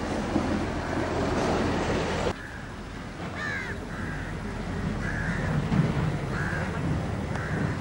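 A crow cawing repeatedly, short harsh calls coming about every half second to second from around three seconds in, over steady outdoor background noise that drops suddenly about two seconds in.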